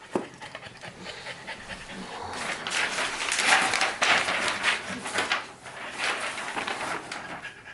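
French bulldogs panting in quick, noisy, excited breaths, loudest around the middle.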